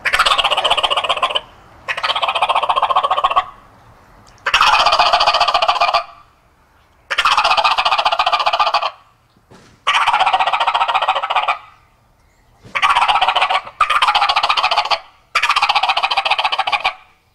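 A series of about eight turkey gobbles made on a mouth call, each a rapid rattling call a second or two long with short pauses between. The later ones are blown through a Corian-and-black-walnut turkey call amplifier tube held to the mouth.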